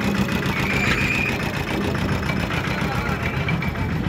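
A small engine running steadily at idle, with people talking in the background.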